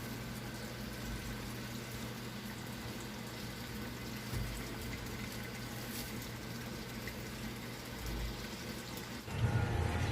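Sharp ES-FA650P automatic washing machine filling with water at the start of its wash cycle: a steady rush of water into the tub with a low hum. About nine seconds in, a louder low rumble joins.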